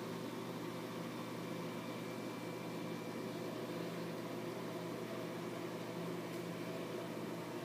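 Steady hum with an even hiss from the 300-gallon reef aquarium's running equipment: pumps and circulating water.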